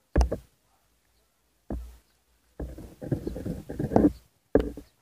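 A dog barking in short, loud bursts: a bark at the start, another about a second and a half later, a longer run of barks in the middle, and one more near the end.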